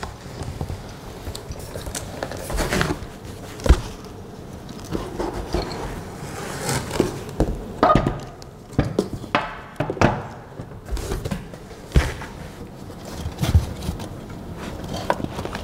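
Unboxing noise: a cardboard box and its packing rustling and scraping, with scattered sharp knocks and clunks as the metal-framed belt 3D printer is lifted out and set down on a glass-topped table.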